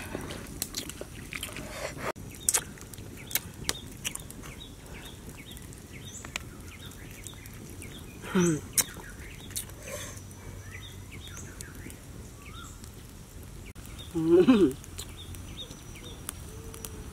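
Outdoor ambience with birds chirping faintly in the background. Twice, about halfway through and again near the end, a person gives a short falling 'wow'-like exclamation.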